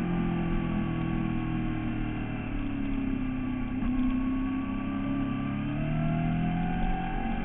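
Sport motorcycle engine heard onboard through a corner: the revs fall and stay lower mid-corner, then rise again near the end as the throttle opens on the exit.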